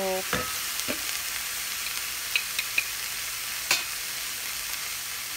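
Chopped purple cabbage sizzling steadily in a stainless steel pan over a gas flame, stirred with a wooden spatula. A few light clicks and knocks of the spatula against the pan, with a sharper knock about two-thirds of the way in.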